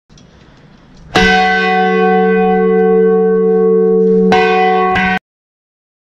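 A large church bell struck about a second in and left ringing, then struck twice more near the end before the sound cuts off suddenly.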